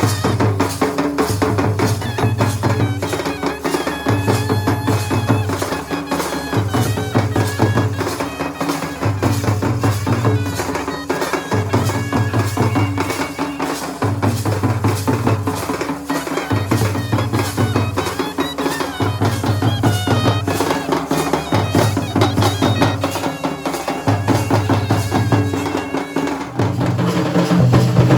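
Traditional Indian folk drumming on dhol and nagada, fast dense strokes over a deep beat that repeats about every second and a quarter, with a reed wind instrument playing a melody on top. Near the end the playing grows louder and fuller.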